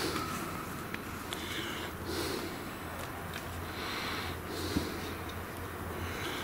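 Heavy breathing through the nose: a run of sniffs and exhales roughly once a second over a low steady hum.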